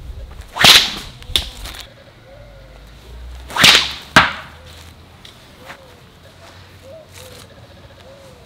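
A 30-inch shepherd's sling whooshing through the air as it is whipped round and released, twice. Each swish is followed about half a second later by a sharp crack.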